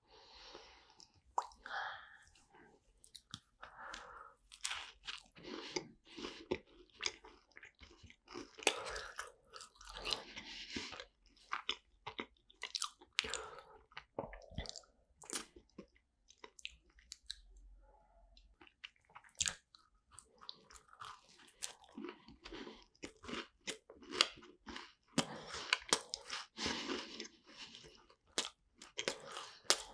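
Close-miked mouth sounds of biting into and chewing macarons: the crisp shells crunching and being chewed, with many short, irregular clicks. There is a brief lull a little past the middle.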